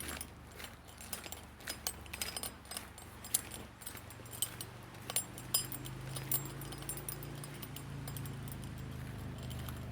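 Small metal gear jingling and clinking in irregular clicks as a hiker walks, thinning out about two-thirds of the way through, with a low steady hum growing louder in the second half.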